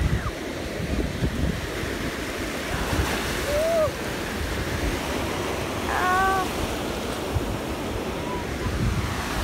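Small waves washing up on a sandy beach, with wind rumbling on the microphone.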